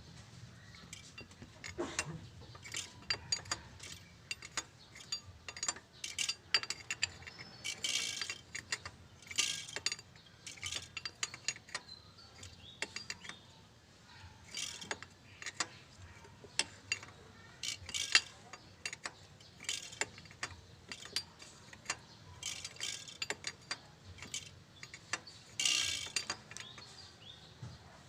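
Hand tools working on engine parts: irregular metal clicks, ratchet-like clicking and clinks, with a few short scraping noises.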